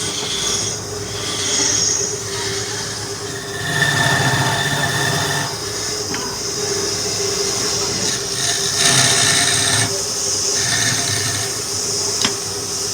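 Wood lathe running with a steady hum while a turning tool cuts the spinning wood; the hissing scrape of the cut swells and fades, with a brief squealing tone about four seconds in.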